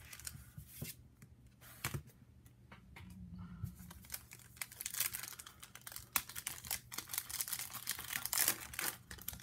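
Crinkling and tearing of a 2016 Panini Prizm football card pack's wrapper being torn open by hand: a run of small crackles that grows denser in the second half.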